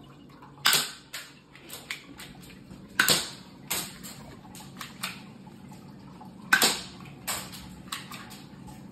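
Toy pistol firing three shots about three seconds apart, each a sharp pop, with fainter clicks and taps between them.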